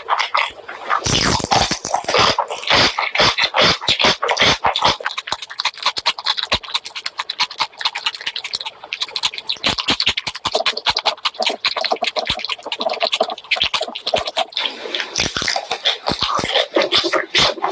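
Close-miked eating sounds of spicy pork leg curry with rice: wet chewing and lip smacking in a rapid, uneven run of clicks and smacks, with a heavier thump about a second in.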